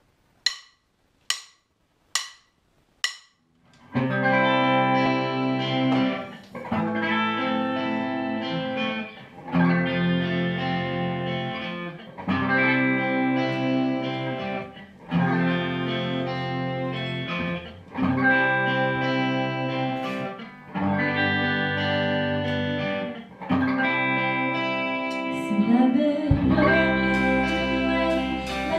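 Four evenly spaced count-in clicks, then a small rock band of electric guitars, electric bass, keyboard and drums plays an instrumental intro in repeated phrases of about three seconds. A deeper bass comes in near the end.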